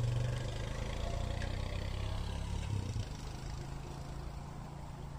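Steady low mechanical hum, like an idling engine, that drops a little in level about three seconds in.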